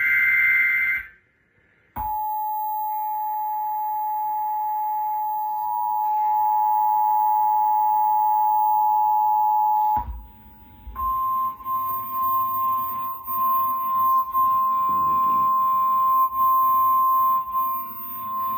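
Emergency Alert System signals: a digital header burst cuts off about a second in. Then the two-tone EAS attention signal, a steady 853 and 960 Hz dual tone, sounds for about eight seconds. After a brief gap, a single steady tone just above 1 kHz follows, the 1050 Hz weather-radio alert tone, over an uneven background.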